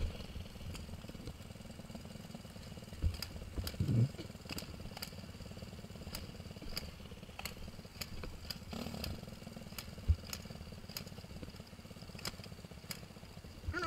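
Small dirt bike engine idling steadily, with a few short knocks about three, four and ten seconds in.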